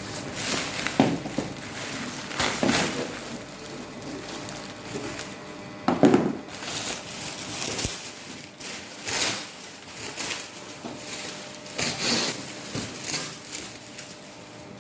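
Packaging being handled and unwrapped: irregular rustling and crinkling with a few short knocks, loudest about a second in and again about six seconds in.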